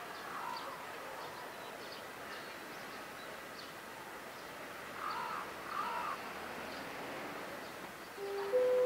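Crows cawing over steady outdoor background noise: one caw early, then two close together about five seconds in, with faint small-bird chirps. Near the end, ringing chime-like tones start.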